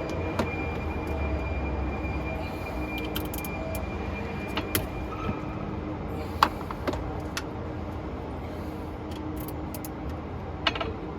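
Scattered sharp metallic clicks and clinks of a wrench and fasteners as cable connectors are undone, over a steady low hum.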